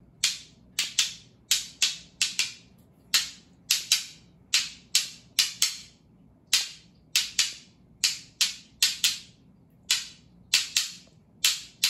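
Rocks being struck together by hand: a long series of sharp clacks, irregularly spaced and often coming in quick pairs or threes.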